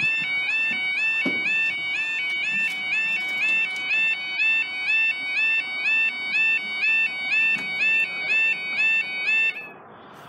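UK level crossing yodel alarm: an electronic two-tone warble switching rapidly back and forth between two pitches. It warns that the barriers are lowering for an approaching train, and cuts off suddenly about nine and a half seconds in.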